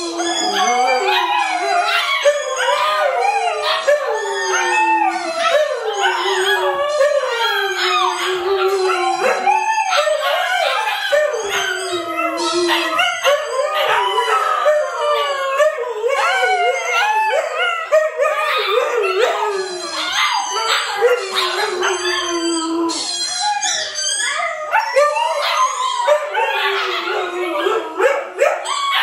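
Siberian huskies, adults and puppies, howling together in a chorus of overlapping howls that glide up and down in pitch without pause.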